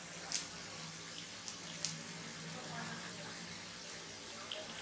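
Potato patties shallow-frying in ghee on a nonstick tawa over a low flame: a soft, steady sizzle with a few small pops.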